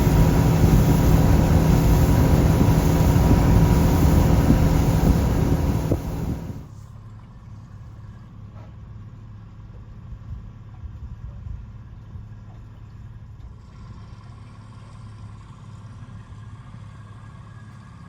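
Motorboat engine running at speed with the rush of wind and water, steady and loud, stopping abruptly about six seconds in. After that only a faint, low, steady hum is heard.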